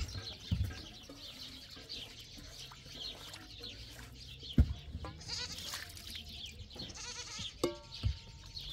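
Goats bleating, with a held call near the end, over a few sharp knocks of a metal tray being handled at a concrete basin.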